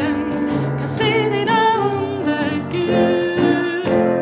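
A woman singing the closing line of a Swedish song with vibrato, accompanied by a digital piano and a djembe. About four seconds in, the music lands on a held final chord.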